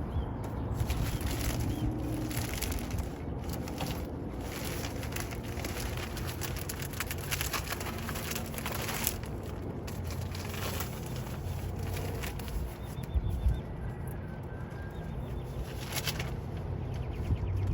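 Irregular rustling and handling noises of garden work, with a few faint bird chirps.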